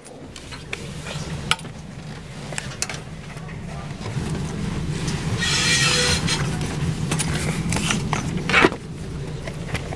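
Steady low hum of a train carriage interior, with knocks and rustling from the camera being handled and moved; a brief hiss comes about five and a half seconds in and the loudest knock near the end.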